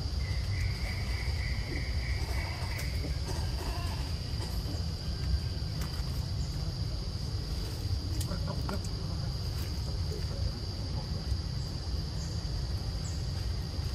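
Forest ambience: a steady high-pitched insect drone over a low rumble. About half a second in, a short rapid trill runs for a couple of seconds, with a few faint clicks scattered through.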